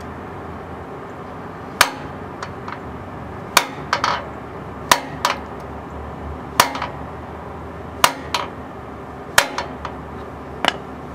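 Ball-peen hammer blows on a seal driver, driving a new rear axle seal into a Ford F100's axle housing until it is seated all the way in: about seven sharp metallic strikes roughly a second and a half apart, several followed by a lighter tap.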